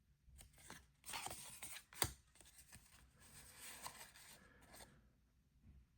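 Faint rustling and sliding of wrestling picture cards being handled, with one sharp click about two seconds in.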